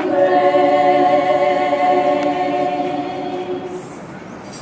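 A group of women singing a cappella in harmony, holding one long chord that dies away about three and a half seconds in.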